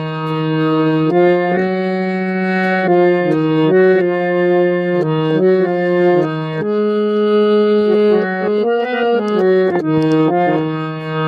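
Harmonium playing a melody over sustained chords, with no singing.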